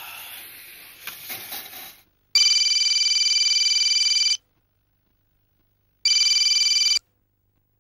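Tap water splashing over hands into a steel washbasin, stopping about two seconds in. Then a mobile phone rings twice with a steady electronic ring, the second ring cut short as it is answered.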